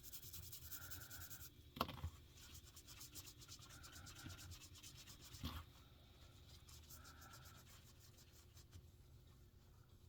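Faint, rapid scrubbing strokes on a guitar pickup as grime is cleaned off, fading later on. Two sharp clicks sound about two and five and a half seconds in.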